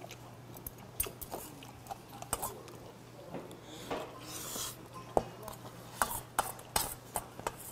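Metal spoon clinking and scraping against a stainless steel bowl while bibimbap is scooped and eaten, in a string of short sharp clinks. A short scraping hiss comes about four seconds in.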